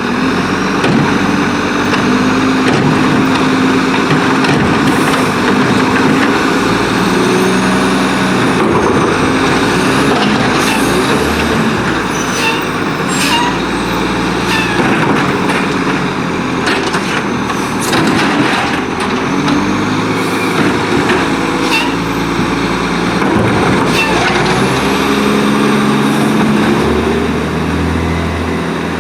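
Garbage truck's diesel engine revving up and down repeatedly in gear to power the hydraulics of its Labrie Cool Hand side-loading arm, with a thin gliding hydraulic whine. A run of sharp knocks and clanks comes about midway.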